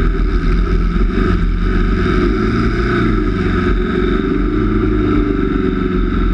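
Homemade off-road buggy's engine running hard as it drives over a muddy track, heard from a camera mounted on the buggy: a muffled, bass-heavy rumble with small swells in engine pitch.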